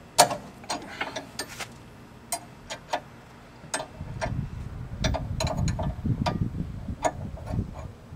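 Irregular metallic clicks and clinks of a hand wrench working a nut on the front suspension, with a low rumble over the second half.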